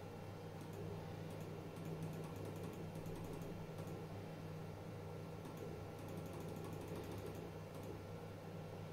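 Three bursts of rapid light clicking over a steady low hum, as the jog buttons are clicked over and over to step a CNC mill's Z axis by 0.01 mm at a time.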